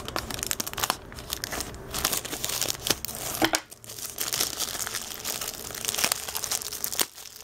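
Clear plastic packaging film crinkling and tearing as hands pull it open, a dense run of crackles with a few sharper ones around the middle.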